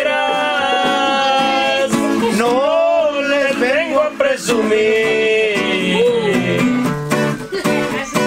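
A song sung with guitar accompaniment, the singer holding long notes.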